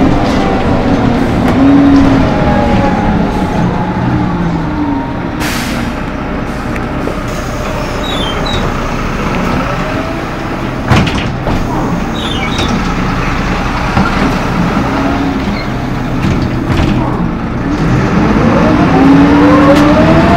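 Jelcz M121 city bus heard from inside the passenger cabin: the engine and driveline drop in pitch as the bus slows, then run quieter with a short hiss and a sharp knock about halfway through. Near the end the pitch rises again and the sound grows louder as the bus accelerates.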